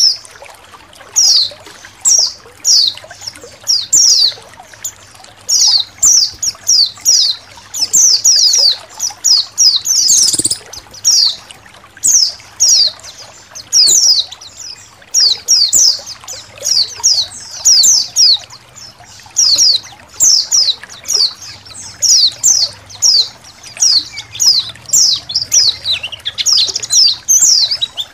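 A colony of white-eyes (pleci) chirping: many short, high, downward-sliding calls in quick clusters, over a faint trickle of running water.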